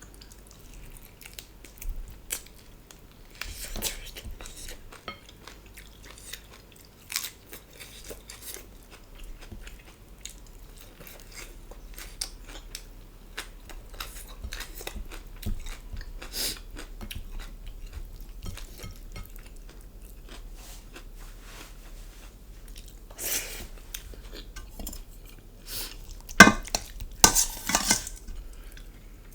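Close-mic eating sounds: chewing with some crunching, and cutlery clinking and scraping on a plate. The clinks come in a louder cluster near the end.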